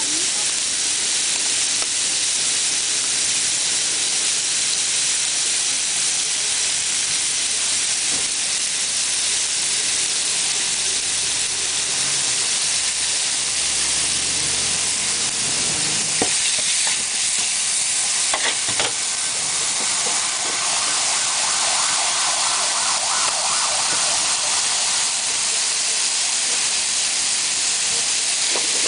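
Bean sprouts, greens and beef sizzling steadily as they stir-fry on a hot pan, with a few sharp clicks about halfway through and again near the end.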